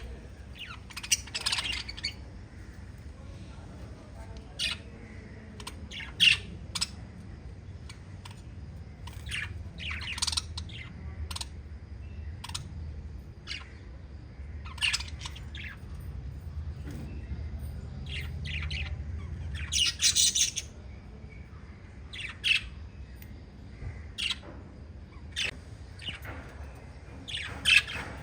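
A group of small pet parrots giving short, sharp chirps and squawks at irregular intervals, over a steady low hum.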